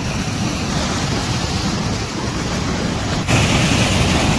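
Fast water rushing and churning through a narrow earthen channel, a steady rush of white water that gets louder and brighter about three seconds in.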